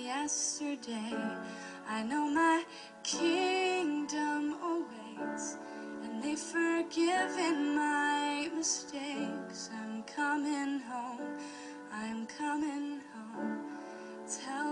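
Background music: a song with a woman singing a wavering melody over instrumental backing.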